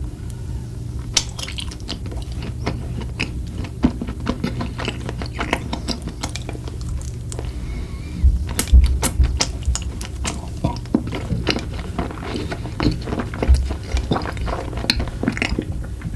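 Close-miked eating of desserts: repeated bites and chewing with many small wet mouth clicks and crackles, and a couple of low thumps about halfway through and again near the end.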